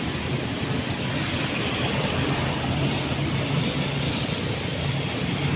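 Steady road traffic noise from motorbikes and cars passing along a street, with a continuous low engine hum.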